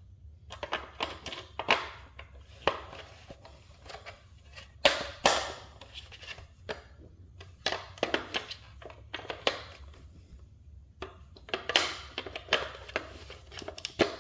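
Batteries being fitted by hand into a plastic smoke alarm's battery compartment: irregular plastic clicks, knocks and short scrapes as the batteries and the alarm are handled.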